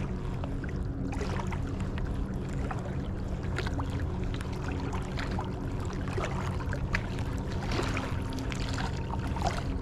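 Small waves lapping and splashing along the shoreline, a steady wash with many small crackling splashes, over a steady low hum.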